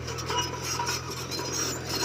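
Komatsu bulldozer's diesel engine running steadily, under an irregular scraping and clinking of stones being pushed by the blade.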